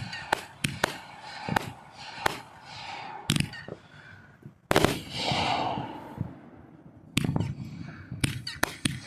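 Fireworks going off: a rapid string of sharp bangs, with a louder bang about halfway through followed by a second of crackling hiss, then another fast cluster of bangs near the end.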